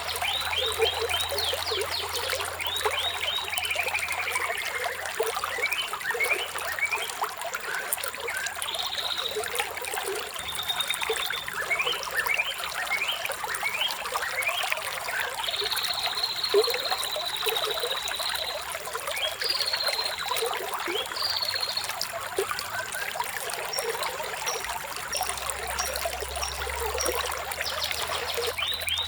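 Running water trickling steadily, with birds chirping over it in quick rising and falling notes, and a longer held whistle about halfway through.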